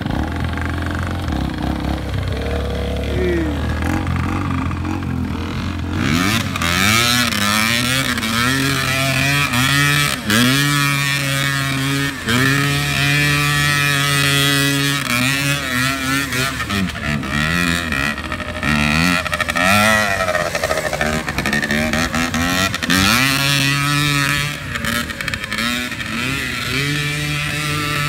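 Small off-road engines of a dirt bike and a quad running across the field: a low steady run for the first few seconds, then repeated revving, the pitch rising and falling with each acceleration and shift, with stretches held at steady revs.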